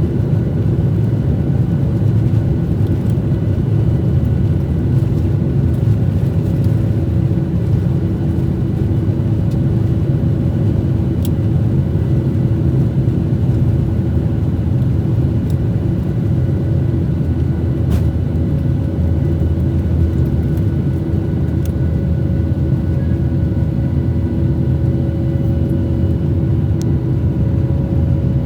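Steady cabin noise inside a Boeing 737-800 airliner: the jet engines and airflow make an even, loud rumble with a steady hum over it.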